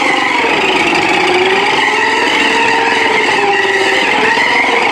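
Small electric drive motor and plastic gearbox of a battery-operated toy RC car whining and buzzing as it drives, the pitch drifting gently up and down with its speed.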